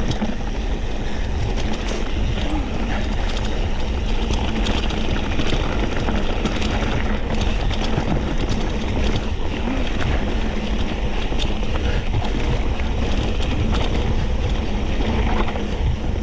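Mountain bike riding down a dirt trail: wind rushing over the camera microphone, with a constant scatter of small clicks and rattles from the bike and tyres over the ground.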